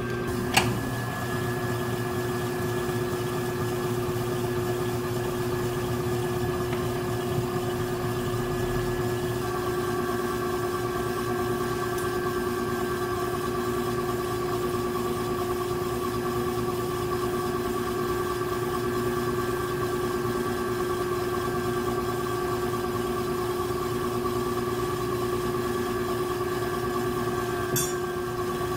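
Electric potter's wheel motor running at a steady speed, a constant hum, with a sharp tick about half a second in.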